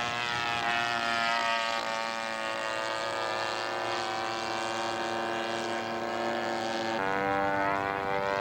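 Radio-controlled scale model airplane's engine and propeller in flight: a steady buzzing drone whose pitch drifts slowly. The pitch steps abruptly about seven seconds in.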